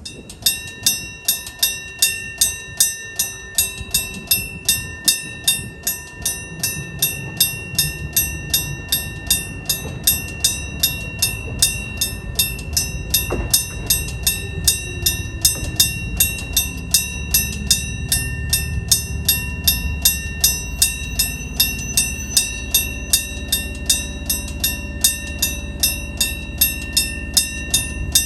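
A 1966 Sankosha electric-bell level-crossing alarm starts ringing and keeps up a steady, rapid clanging of about two and a half strokes a second. Only one of the crossing's two bells sounds, because the other has failed. From about six seconds in, the low rumble of an approaching train builds beneath the bell.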